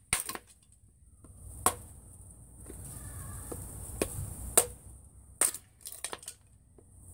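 SOG FastHawk tomahawk chopping thin kindling strips off the edge of a pine 1x6 board: sharp knocks and cracks as the blade strikes and the wood splits. A few spaced strikes, then a quick run of them near the end.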